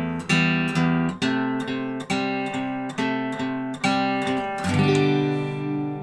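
Steel-string acoustic guitar hybrid-picked: bass notes in steady eighth notes, about two a second, with melody notes on the second and third strings, moving from E minor to C about a second in. Near the end a fuller chord is played and left to ring.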